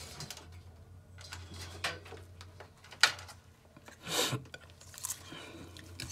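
Small handling noises of a spool of solder wire being picked up and unreeled on a workbench: a few light clicks and rustles, the sharpest click about three seconds in and a short rustle about a second later, over a faint steady low hum.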